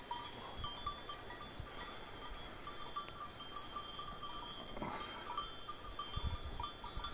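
Cowbells on grazing cattle clinking faintly and irregularly, with short scattered rings.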